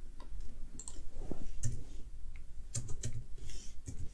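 Computer keyboard typing: a few separate keystrokes as a short string of characters is entered.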